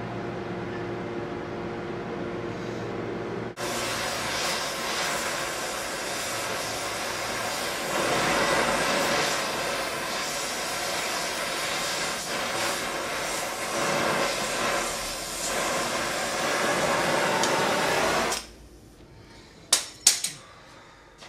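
A steady machine hum at first, then a loud, even hissing rush that cuts off suddenly about 18 seconds in, followed by two sharp metal clinks.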